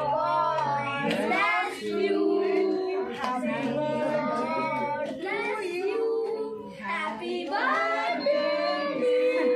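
A birthday song being sung, a child's voice to the fore with other voices overlapping, holding and gliding between notes.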